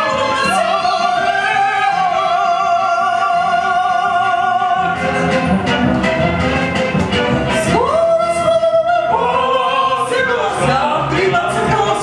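A woman sings an operetta song in a classical style, holding notes with vibrato over instrumental accompaniment. About five seconds in, the accompaniment takes on a steady rhythmic beat. Near eight seconds the voice swoops up to a high note.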